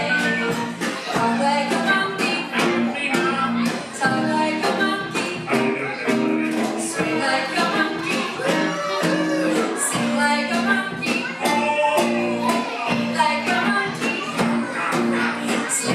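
A live band playing an upbeat song with singing: electric bass, guitars and keyboard over a steady beat.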